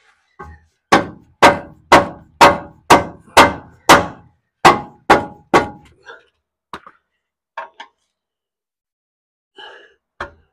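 Hammer blows on metal under a Jeep: about ten sharp strikes, roughly two a second, each with a short metallic ring, followed by a few lighter knocks.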